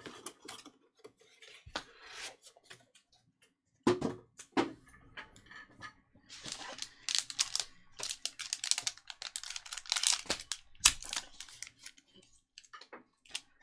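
Foil trading-card pack being handled and torn open by hand: a few scattered clicks and taps, two sharper ones about four seconds in, then several seconds of dense crinkling and tearing in the middle that thins out near the end.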